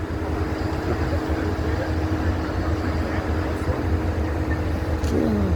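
Heavy vehicle engine idling, a steady low rumble with a constant hum over it. A brief voice comes in near the end.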